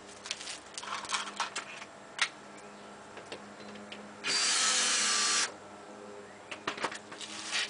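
Cordless drill running once for about a second against a screw in an aluminium trailer brow. Light clicks and taps from handling the metal trim come before and after it.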